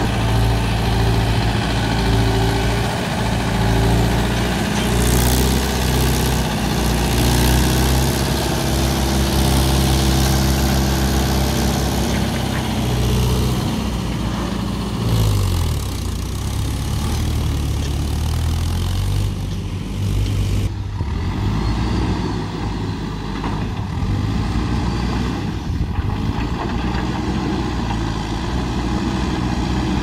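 Diesel engine of a Mahindra Yuvo 575 tractor running steadily, its pitch dropping and then climbing back about halfway through. From about two-thirds of the way in, the engine sound turns duller and steadier.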